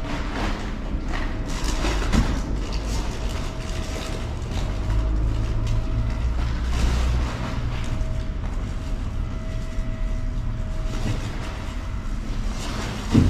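Rummaging through rubbish in a wheelie bin: scattered rustles and knocks over a steady low mechanical hum with a faint high whine.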